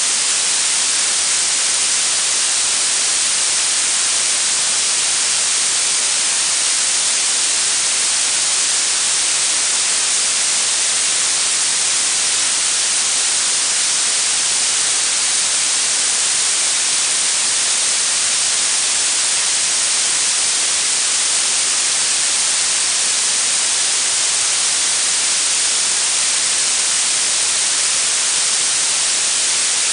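Synthetic blue noise: a steady, even hiss weighted toward the high frequencies, with little low end, unchanging throughout.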